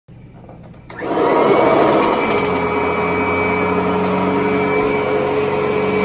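Kirby upright vacuum cleaner coming on about a second in and then running loudly and steadily while being pushed over carpet, with a steady whine on top of the motor noise.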